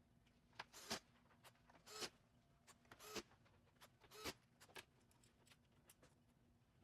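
Short metallic clicks about once a second, then fainter ticks: a 4 mm Allen key being turned and reset while screws are driven back in.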